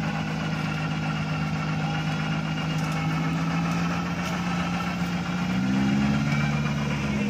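Off-road 4x4's engine running steadily at low revs, rising a little in pitch and loudness about five and a half seconds in.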